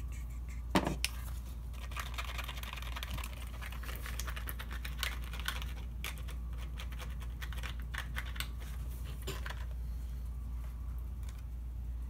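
Plastic two-part epoxy package and mixing tray being handled and stirred: a sharp click about a second in, then rapid small plastic clicks and scraping that die down near the end.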